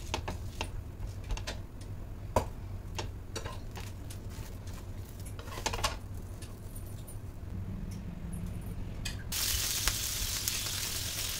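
A steel spatula clicking and scraping on a dosa tawa as a dosa is folded and lifted. About nine seconds in, a steady sizzle starts as dosa batter is poured onto the hot pan.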